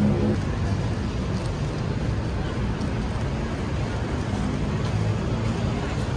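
Steady city road traffic: a continuous rumble of car engines and tyres, with faint voices of passers-by.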